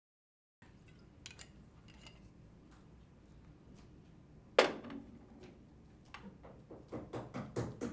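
Knocks and clicks of things being handled in a small room: faint clicks early, one sharp knock about halfway through, then a quick run of smaller knocks near the end.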